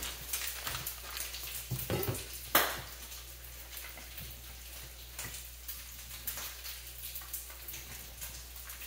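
Bacon frying in a skillet: a steady sizzle with scattered small crackles and pops. A sharp knock, the loudest sound, comes about two and a half seconds in.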